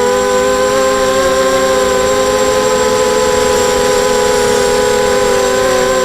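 Eachane Racer-250 racing quadcopter's four brushless motors and propellers whining at a fairly steady pitch, several close tones wavering only a little.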